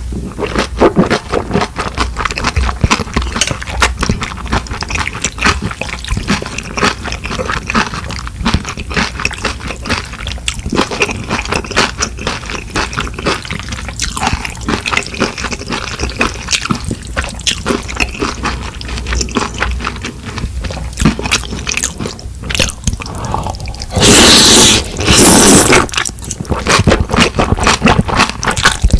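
Close-miked wet chewing of mixed noodles and dumplings, a dense run of small moist smacks and clicks. Near the end there are two loud slurps of noodles.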